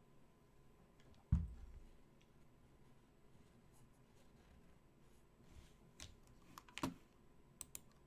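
A cup set down on a desk with a single thud about a second in, then several short, sharp clicks near the end.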